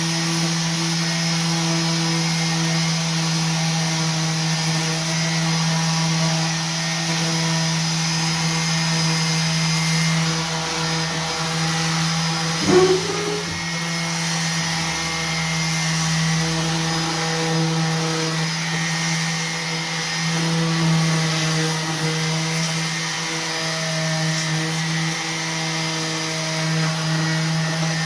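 Electric orbital sander running steadily against painted wood, sanding the edges and body of an old chest of drawers to distress the paint, with one brief knock about halfway through.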